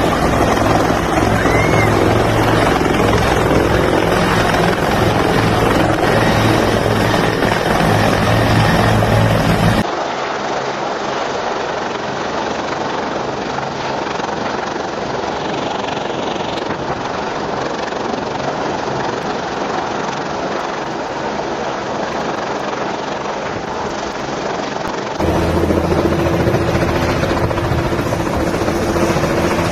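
Helicopter running steadily, its rotor and engine giving a continuous drone. The sound changes abruptly about ten seconds in, becoming thinner with less low end, and changes back near the end, as between separate recordings.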